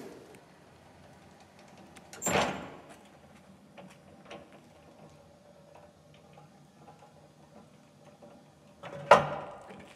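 BT LSF 1250/11 electric pedestrian stacker with its mast and forks coming down: a faint steady hum with small clicks, and two loud clunks, one about two seconds in and one near the end.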